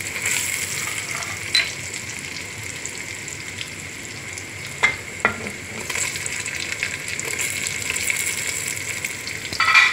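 Chopped onions and ginger-garlic sizzling steadily in hot oil in an aluminium pressure cooker as they are stirred. A few sharp clicks and knocks sound against the pot, with a louder clatter near the end.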